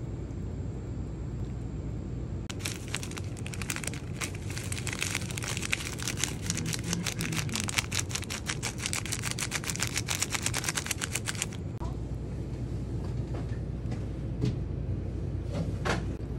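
A plastic packet of seaweed flakes crinkled and shaken out over fried rice: a dense run of rapid crackling rustles starting a couple of seconds in and lasting about nine seconds, over a steady low background rumble. A brief scrape comes near the end.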